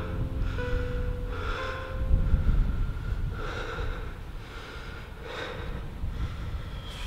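A person breathing heavily, about one breath every two seconds, over a low rumble, fading out at the end.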